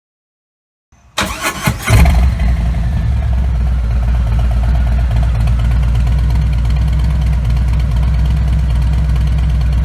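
Harley-Davidson Milwaukee-Eight V-twin on a 2017 Road King Special, through its stock exhaust. The starter cranks briefly about a second in, and the engine catches just before two seconds in. It then settles into a steady idle.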